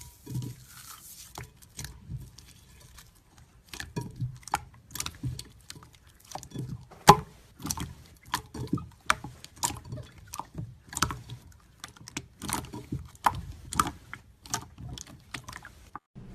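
Crunchy slime being squeezed and pressed by hand, giving irregular sharp crackles and pops, a few a second, over soft handling sounds.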